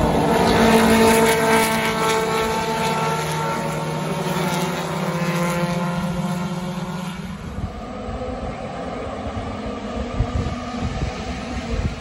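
Several vintage Alfa Romeo racing cars' engines passing at speed, loudest in the first two seconds, their pitch gradually falling as the cars pull away. The engine tones fade out after about seven seconds into a low, rumbling background.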